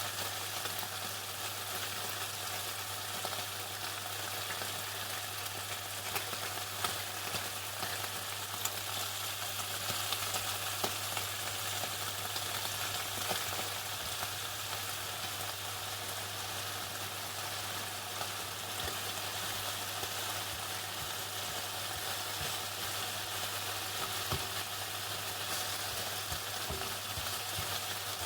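Chicken frying in hot oil in a deep fryer: a steady, even sizzle with many small crackles and pops, over a constant low hum.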